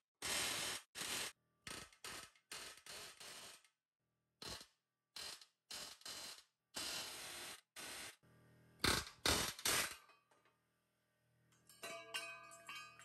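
Pneumatic air hammer (air chisel) firing in many short bursts, each under a second, driving ground-flush mushroom-headed rivet bolts out of a steel truck frame.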